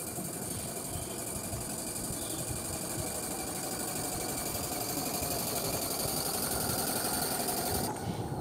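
Maxitrak 3/4-inch scale live-steam traction engine running under radio control, with a rapid, even mechanical beat that grows louder as it approaches.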